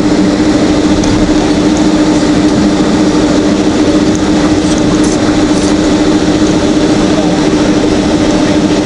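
Cabin noise inside a Boeing 767-300ER taxiing onto the runway: its jet engines running at taxi power, a steady hum with one constant low tone.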